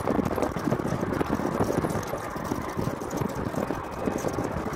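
Golf cart driving along a paved road: a steady running noise of motor, tyres and wind, with irregular rattling.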